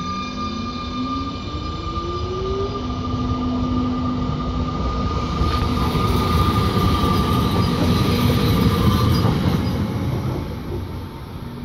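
Siemens Desiro ML (class 460) electric multiple unit pulling away. The traction motor whine rises steadily in pitch over the first few seconds, over steady electrical humming tones. The cars then roll past with a louder rumble of wheels on rail that fades near the end.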